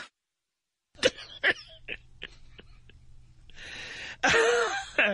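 Dead air on a radio broadcast: about a second of total silence, then an open line with a low hum and a run of small clicks, and a man clearing his throat near the end as the newscaster struggles to start his newscast.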